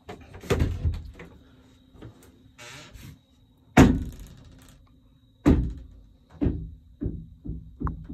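A series of sharp knocks and thumps in a small boat cabin, the loudest about four seconds in, with a brief rasp just before it and lighter knocks about once a second near the end.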